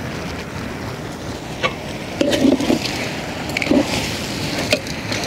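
Metal ladle stirring and scraping chicken in a large aluminium pot, with a few sharp knocks of the ladle against the pot over a steady hiss.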